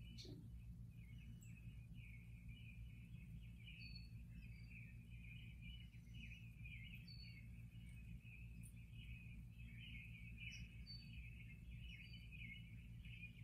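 Faint birdsong played from a bird video through a speaker: a continuous chatter of bird calls with several short, high chirps scattered through it, over a low steady hum.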